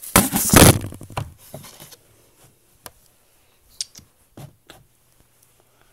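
Handling noise from a phone being moved: a loud burst of rustling and scraping against fabric in the first second. A few faint scattered clicks and taps follow.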